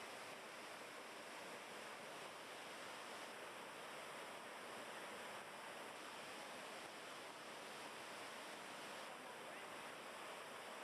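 Steady rushing of a waterfall and fast-flowing stream water, an even, unbroken roar of falling and churning water.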